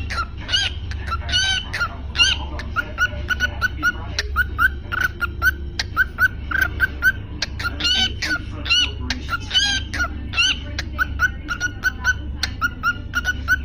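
Cockatiel singing: quick runs of short, high chirping whistles repeated over and over, with a few longer rising-and-falling whistled notes mixed in, over a steady low hum.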